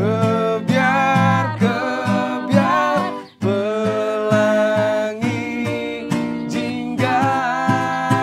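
Acoustic guitar strumming chords under a voice singing long held notes that slide between pitches, with a brief break about three seconds in.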